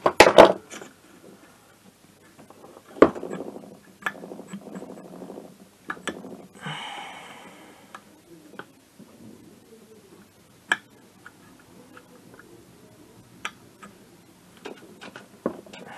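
Scattered sharp metallic clicks and knocks of parts being handled and fitted on the bare aluminium crankcase and gear shafts of a Minarelli AM6 engine, with a brief rustle about seven seconds in.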